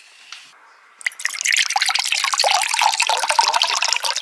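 Lemonade poured from a bottle into a drinking glass. The steady splashing stream starts about a second in and keeps going.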